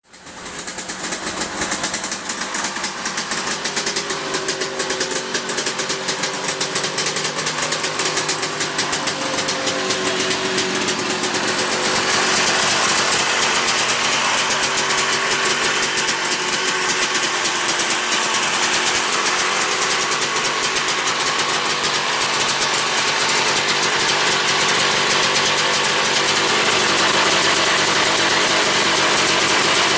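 1972 Ski-Doo Elan's single-cylinder 247cc Rotax two-stroke engine running with a quick, even beat. About twelve seconds in it grows a little louder and smoother.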